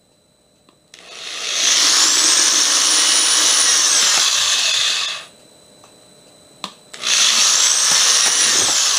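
Handheld power drill boring small screw holes through a plastic sheet into a wooden frame, in two runs: the motor spins up about a second in and runs for about four seconds, stops, then a click and it starts again about two seconds later. Each run rises in pitch and then falls.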